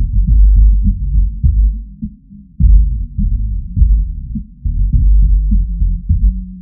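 Bass-boosted electronic music, low-pass filtered so that only the deep sub-bass and bass notes remain, pulsing in heavy swells for a subwoofer test.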